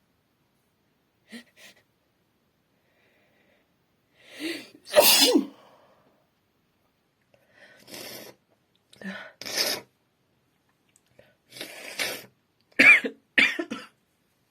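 Acted human sneezes in a feminine-sounding voice. A breathy build-up leads to a loud sneeze about five seconds in, then come softer breathy catches of breath, and a quick pair of sneezes near the end.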